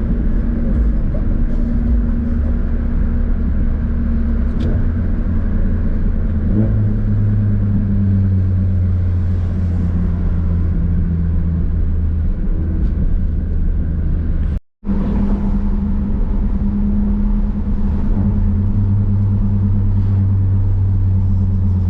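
Ford Focus RS engine and road noise heard inside the cabin while driving, with the engine note changing about seven seconds in and again near the end as it is shifted through the gears. The sound cuts out for a moment about two-thirds of the way through.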